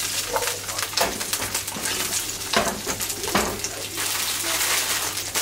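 Asparagus, shimeji mushrooms and garlic sizzling in oil in a frying pan being stir-fried, with the pan shaken on the burner and scraped by a spoon, giving a steady hiss broken by scrapes and knocks, two of them louder in the middle.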